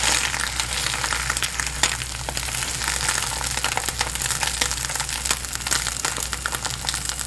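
Food frying in hot oil, a dense, steady sizzle with many small pops and crackles, over a steady low hum.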